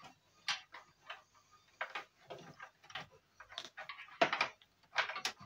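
Irregular sharp plastic clicks and small knocks as cable connectors are unplugged and handled inside a desktop PC case, louder about four seconds in and again near the end.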